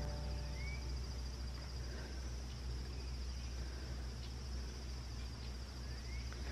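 Woodland insect chorus trilling steadily and high. A bird gives a short rising whistle about half a second in and again near the end, over a low steady rumble.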